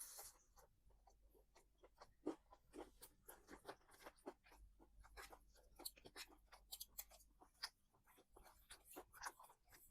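Close-up chewing and crunching of crispy fried chicken: many short, irregular crunches and wet mouth sounds, all faint.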